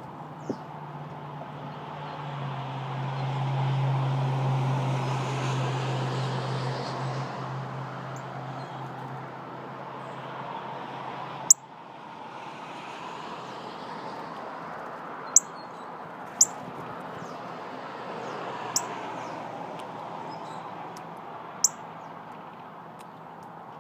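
Outdoor background noise with a passing vehicle that swells and fades over the first ten seconds above a steady low hum, which cuts off abruptly about halfway through. In the second half, small birds give about five short, sharp chirps.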